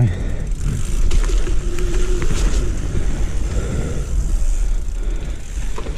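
Hardtail mountain bike being ridden along a dirt trail: a steady low rumble of wind buffeting and tyre noise, with scattered clicks and rattles from the bike over the ground.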